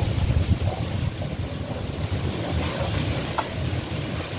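Wind buffeting the microphone, a continuous low, gusting rumble.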